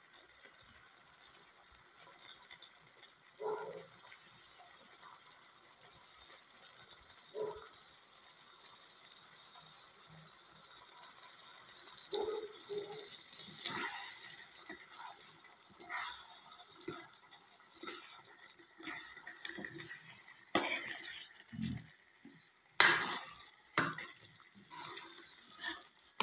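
Chicken curry sizzling and bubbling in a steel kadai, a steady hiss. A metal ladle scrapes and clinks against the pan as it is stirred, more often in the second half, with the sharpest clinks near the end.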